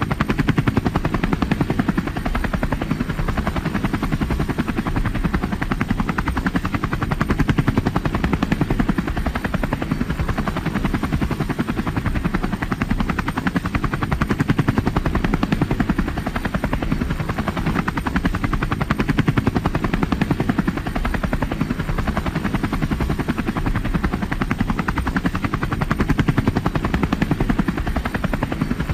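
Helicopter in flight: a steady, fast, even chop of the rotor blades with engine noise beneath it.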